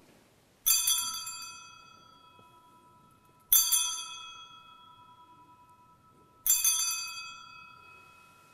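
Altar bell rung three times at the elevation of the host after the consecration, each sharp ring fading slowly.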